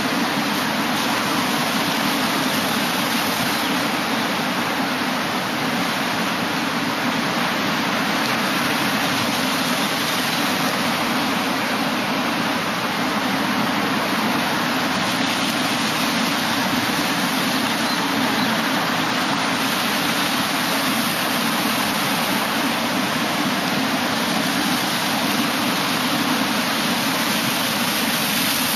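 Ocean surf breaking over a rocky shore: a steady, continuous rush of white water with no single wave crash standing out.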